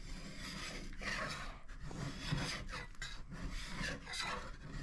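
A hand scraper pushed flat along wood in repeated strokes, about one a second, scraping off an old finish softened by chemical paint stripper.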